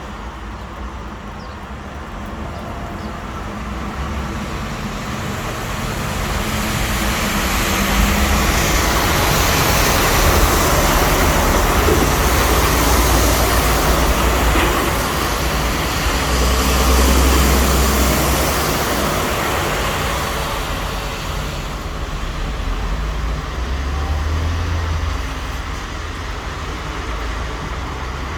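Road traffic passing on a wet road, the tyres hissing on the wet surface over a low engine rumble. It swells into a loud stretch for several seconds as vehicles go by, then eases off.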